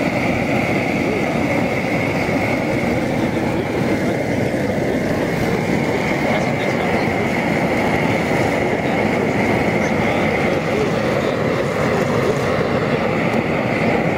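Propane jet burner under a large crawfish-boil pot, running with a steady roar and a thin, steady high whistle over it.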